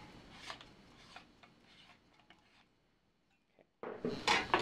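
Handling noise: light clicks and plastic rustling as a small microscope camera and its adapter are handled, dying away after about a second into a gap of near silence, with a few sharper clicks and rustles returning near the end.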